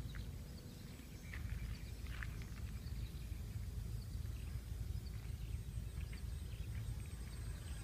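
Wind rumbling on the microphone, with short, faint bird chirps scattered through, most of them in the first few seconds.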